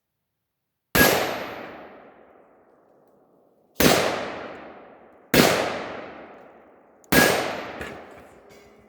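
Four rifle shots of .223/5.56 ammunition, unevenly spaced, each followed by an echo that fades over about a second and a half.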